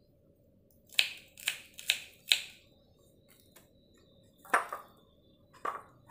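Small knife chopping garlic cloves on a wooden cutting board: four sharp knocks in quick succession about a second in, then a few lighter ticks and two more knocks near the end.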